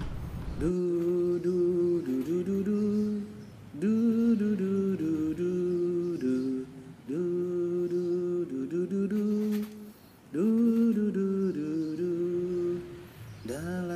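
Background music starts about a second in: wordless humming voices in held phrases of a few seconds each, with short breaks between them.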